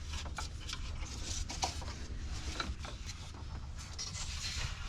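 Light rubbing and scattered small clicks of a new ribbed drive belt being handled and fed around the engine's pulleys, over a steady low hum.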